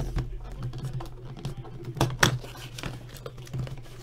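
A trading-card box's cardboard packaging being handled and slid open, giving a few sharp clicks and scrapes, the loudest at the start and two about two seconds in. A steady low hum runs underneath.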